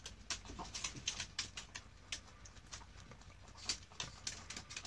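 Mini Rex rabbit chewing fresh Italian parsley: a quick run of crisp crunches, several a second, the loudest a little before the end.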